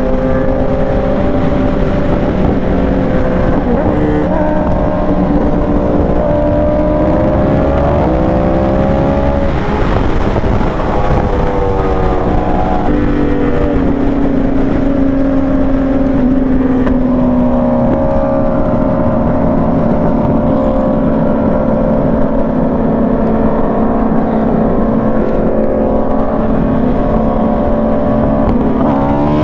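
Yamaha R1 inline-four engine heard from the rider's seat at freeway speed, its pitch rising and falling with the throttle several times and climbing again near the end, over a steady rush of wind.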